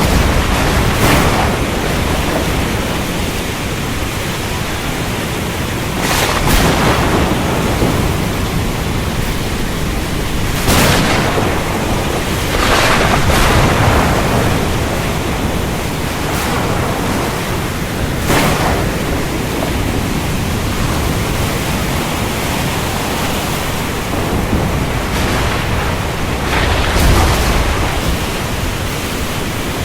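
Heavy rain falling steadily, with thunder: several sharp cracks spread through, and a deeper rumble near the end.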